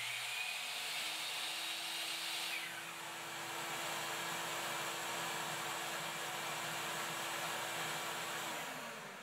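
A miter saw starts and winds down after a couple of seconds, switching on a Ridgid shop vac through an automatic tool-activated switch. The vac keeps running with a steady rushing hiss and spins down near the end, about six seconds after the saw stops, the switch's delay for clearing the hose.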